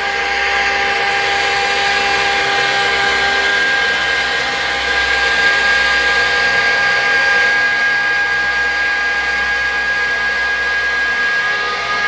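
York YCIV air-cooled chiller's screw compressor running with a steady whine over a steady hiss; this is the sound the title calls abnormal.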